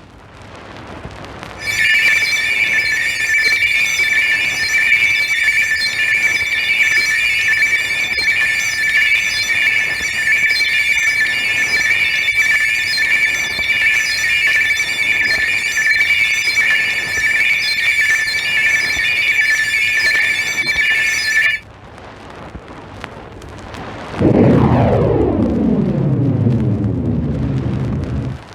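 Synthesised science-fiction sound effects played from a vinyl flexidisc. A high, steady warbling electronic tone runs for about twenty seconds and cuts off suddenly. A few seconds later comes a loud, low electronic sound of many pitches gliding downward.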